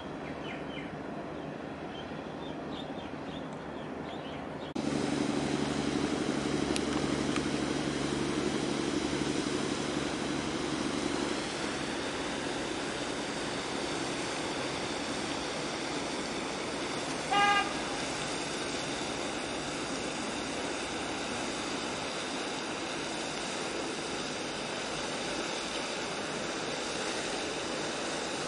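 A large gas carrier passing close by: a steady low machinery hum from the ship over the rush of water splashing from the outlets on its hull. A short horn toot sounds once about two-thirds of the way through.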